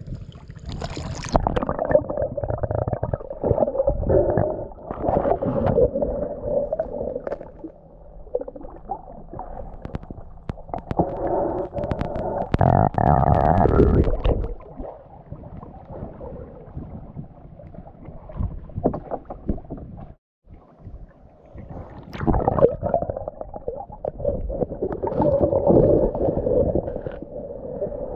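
Sea water sloshing and gurgling around a camera held at and below the surface, heard muffled from under the water, in uneven surges with quieter stretches in between.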